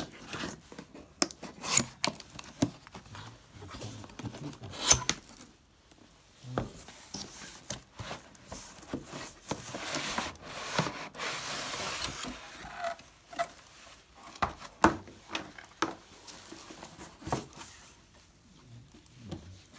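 Cardboard packaging being handled: a shipping box opened and its inner box and molded-pulp inserts pulled out. Scattered sharp knocks and scrapes, with a longer rubbing, rustling stretch about ten seconds in.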